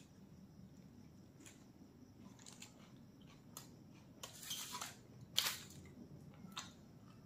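Aluminium foil crinkling as a large roll is set down on it: a rustle a little past four seconds in, then a sharp crackle about a second later, the loudest sound. Faint chewing and mouth clicks before that.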